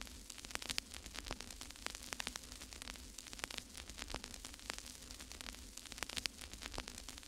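Faint steady hiss and low hum with many irregular crackling clicks, like static.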